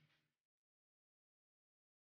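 Near silence: a faint sound fades out within the first half-second, then the track goes completely silent.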